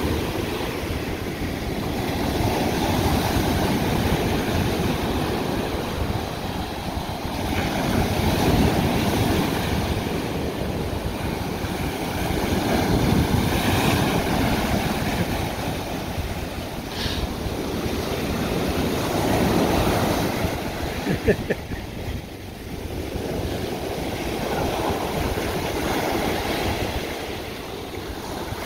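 Ocean surf breaking on a beach: a steady rush of waves that swells and eases every five seconds or so. About two-thirds of the way in there is a short cluster of sharp sounds, the loudest moment.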